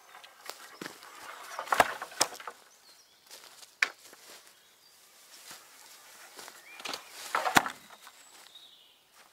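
Long wooden poles dropped one at a time onto dry leaf litter: a rustling crunch of leaves with a knock of wood about two seconds in, and again near the end. Lighter rustling of leaves and footsteps between.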